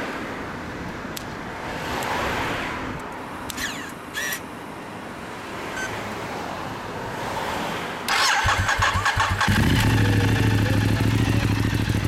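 The 2014 Ducati Diavel Carbon's L-twin engine is cranked by its starter for about a second and a half, starting about eight seconds in. It then catches and runs at a steady idle through its aftermarket Zard Conico silencer.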